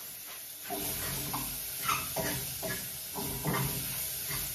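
Dogs whining and giving short barks, over a steady hiss.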